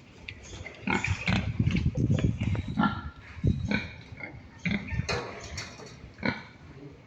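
Pigs grunting in a run of short, irregular calls, loudest and most crowded between about one and three seconds in.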